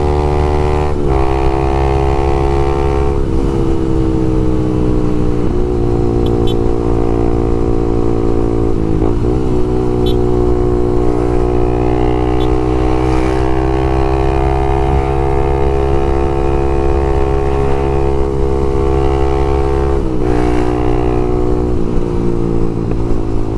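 Honda Twister 250's single-cylinder four-stroke engine running loud through an open Leo Vince exhaust while riding. The engine note breaks briefly several times as the rider shifts gears, then holds and drifts slowly up and down in pitch between shifts.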